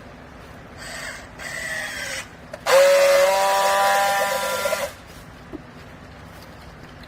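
Semi-automatic clothes baler's motor running with a steady whine for about two seconds, then cutting off, after a shorter, quieter burst of machine noise about a second in.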